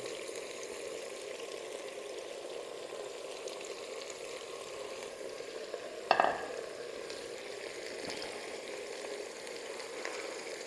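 Meat frying on onions in oil in a pressure-cooker pot, a steady sizzle as the meat starts to brown. About six seconds in there is a single brief knock.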